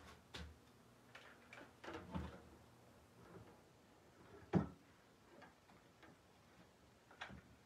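Quiet handling of a moss wreath and its artificial picks: a few light clicks and taps, with one sharper click about four and a half seconds in.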